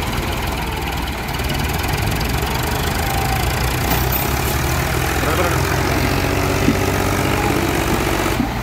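Massey Ferguson 375 and Ford 4600 diesel tractor engines running under load as they work to pull out a stuck, overloaded trolley. A steady low engine note, with a higher engine tone coming in around the middle.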